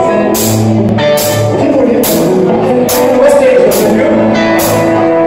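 Live rock band playing electric guitars, bass and drum kit, with loud drum accents about once a second.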